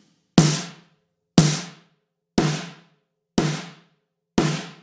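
Sampled acoustic snare drum played by a virtual drummer plugin, struck once a second. Each hit is sharp and fades out within about half a second. Five hits.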